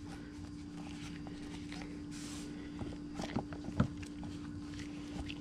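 Hands rubbing leather conditioner into a leather knife sheath: soft rubbing with a few small clicks and taps, over a steady low hum.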